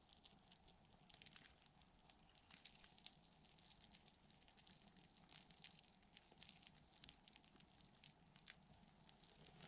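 Near silence: faint outdoor ambience with scattered light ticks and crackles.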